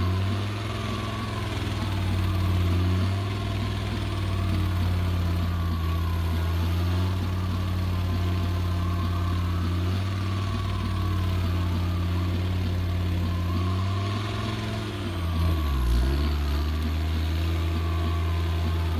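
Engine sound running steadily at a low, even pitch like an idle. About 16 seconds in, the pitch dips briefly and comes back up.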